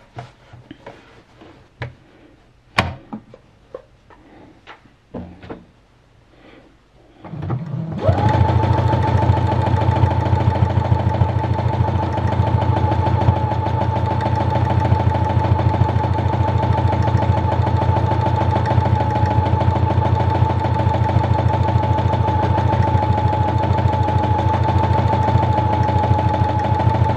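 Several light clicks and taps, then a Brother XR9550 computerized sewing machine starts about eight seconds in and runs fast and steady, stitching a decorative stitch. Its motor whines evenly over the rapid rattle of the needle.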